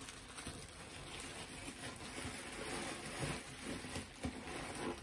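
A plastic bag of costume jewelry rustling and crinkling as it is handled, with a few soft knocks partway through.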